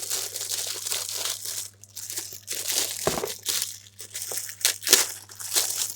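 Packaging crinkling and rustling as it is handled and opened, with a knock about three seconds in and a sharp click about five seconds in.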